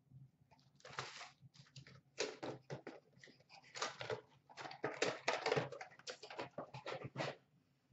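A cardboard box of trading card packs being opened and the packs pulled out and stacked on a glass counter: a quick run of short rustles, scrapes and taps, busiest in the second half.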